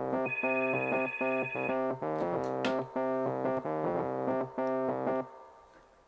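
Cordless phone ringing with an electronic keyboard-style ringtone melody, with a high steady beep in the first second or so. The ringing fades out near the end.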